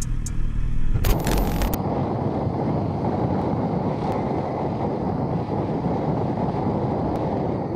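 Wind buffeting a motorcycle rider's camera microphone while riding, a steady dense roar that starts about a second in after a short hiss.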